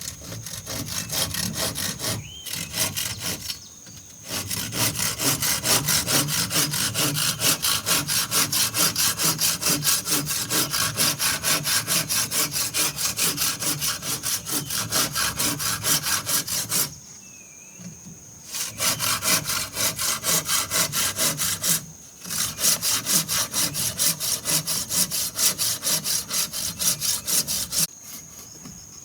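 Hand saw cutting through wood in steady back-and-forth strokes, about two to three a second, in runs broken by short pauses, with a longer break about two-thirds of the way through.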